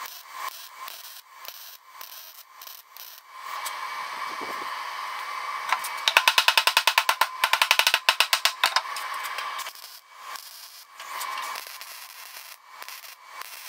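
MIG welder tacking a steel patch onto a rusted mower deck, crackling and sputtering in short bursts. About six seconds in, a hammer strikes the steel patch fast, roughly seven blows a second for nearly three seconds, and then the welding crackle starts again.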